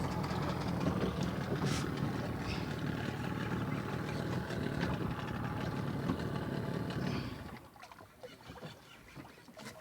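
A boat's engine running steadily, then dying away about seven and a half seconds in, leaving quiet with a few small clicks.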